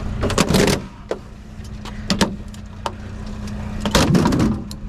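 Plastic casing of a discarded TV being pried and pulled apart by hand: sharp clicks and cracks, with two bursts of rattling and scraping, one about half a second in and one near the end. A steady low engine hum runs underneath.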